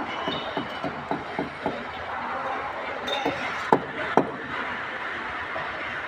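Construction-site work noise: a run of light knocks and clicks, about three a second for the first couple of seconds, then two sharper knocks in the middle, over a steady background hiss.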